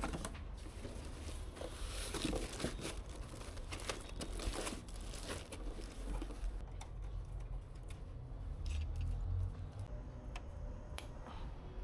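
Rustling and crinkling with scattered light clicks over a low steady hum; the rustling is busiest in the first half and thins out later.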